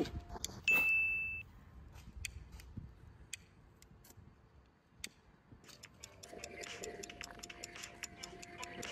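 A short electronic beep about a second in, then a ticking-clock timer sound effect at about two ticks a second. Music comes in under the ticking from about six seconds in.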